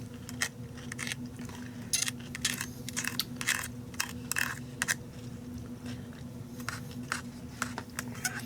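Crunchy chewing of homemade refrigerator dill pickles, a run of irregular crisp crunches, over a steady low electrical hum.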